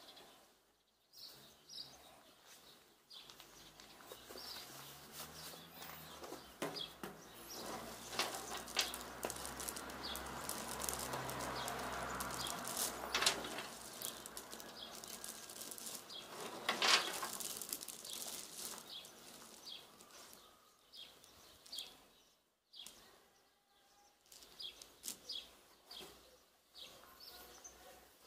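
Homemade sawdust pellets rustling and clattering as a hand scoops them and lets them fall back onto the heap, loudest in the middle with a couple of sharper clacks. Small birds chirp now and then.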